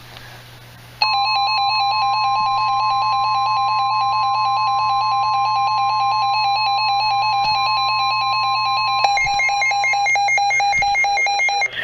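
NOAA Weather Radio alert tone: a steady tone near 1 kHz with a fast beeping alarm over it, starting about a second in and lasting about ten seconds; the beeping shifts pitch about nine seconds in. It signals that a severe thunderstorm warning is about to be broadcast.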